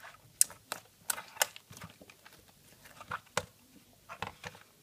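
Thick, hard mixed slime of butter and clay slimes being squeezed and pressed by hand, making irregular sticky clicks and pops in two clusters with a quieter stretch in the middle.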